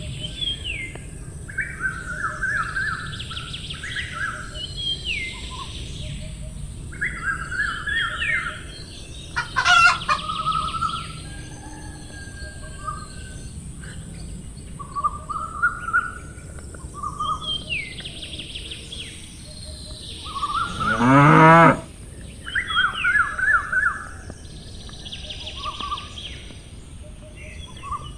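Songbirds chirping in short repeated phrases throughout, and a cow mooing once, loudly, about three quarters of the way in, plus a shorter call about a third of the way in.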